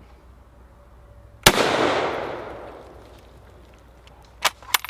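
A single shot from a Norwegian Krag-Jørgensen 1912 carbine in 6.5x55, its report echoing and dying away over about a second and a half. About three seconds later come two quick sharp metallic clicks as the Krag's bolt is worked.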